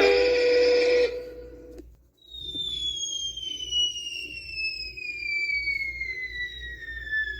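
Cartoon falling whistle sound effect: one long high whistle gliding slowly and steadily down in pitch for about five seconds. It follows the fading tail of another effect that holds a steady tone during the first second or two.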